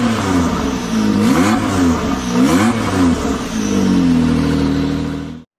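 Engine revving hard in a series of quick blips, its pitch sweeping up and down several times, then held steady at high revs before cutting off suddenly near the end.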